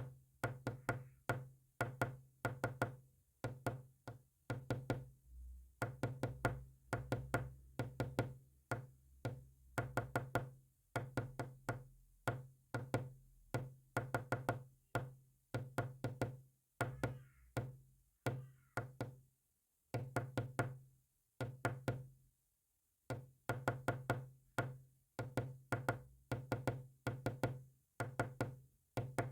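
Rapid clicks and knocks sent in short groups with pauses between them, Morse code being keyed, with a low hum under each group and a couple of longer breaks a little past two thirds of the way through.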